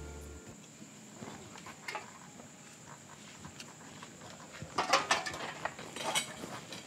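Background music stops about half a second in. Then come sparse clattering and scraping sounds of cans and bottles being handled near a street hand cart, with a cluster of louder clatters near the end.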